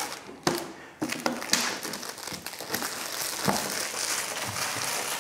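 Clear plastic wrapping crinkling and rustling as it is pulled off a hard plastic storage box, with a sharp click about half a second in and another about a second in.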